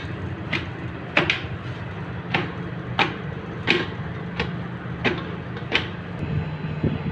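Boiled potatoes being mashed through a steel sieve with a long-handled metal tool, the tool clinking against the steel about nine times, roughly once a second, then stopping about six seconds in. A steady low hum runs underneath.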